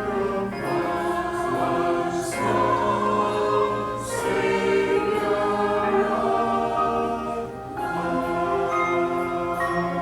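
Choir singing in held chords, in phrases with short breaks between them.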